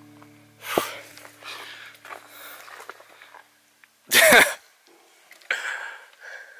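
A woman's loud breathy vocal outbursts, like exhausted sighs, one about a second in and a louder one about four seconds in, as the last held notes of background music fade out.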